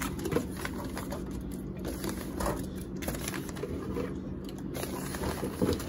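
Rustling and light clinks of aluminium beer cans being taken from a refrigerator and packed into a soft fabric cooler bag, over a steady low hum.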